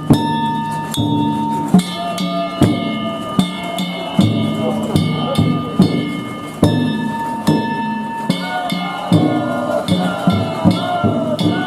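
Danjiri festival accompaniment: a drum struck in a steady beat, about one main stroke a second with lighter strokes between, over ringing metal gongs.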